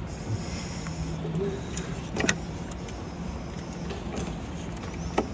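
A few light metallic clicks and knocks from hands and a tool working at the engine's exposed timing chain, the clearest about two seconds in and near the end, over a steady low hum.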